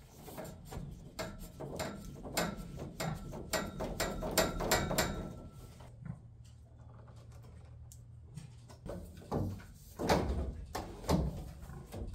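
Hand tools and metal pipe fittings being handled while a ball-valve and diverter assembly is fitted: a quick run of clicks and clanks in the first half, a quieter stretch, then a few louder knocks near the end.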